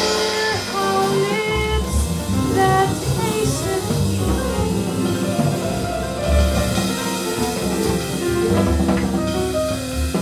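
Small jazz group playing: piano, double bass and drum kit.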